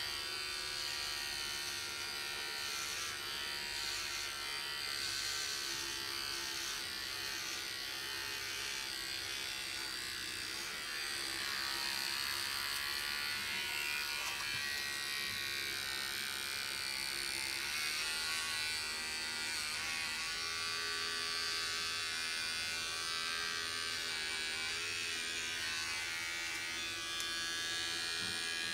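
Electric pet hair clippers buzzing steadily as they trim a dog's fur. The buzz gets a little louder about eleven seconds in.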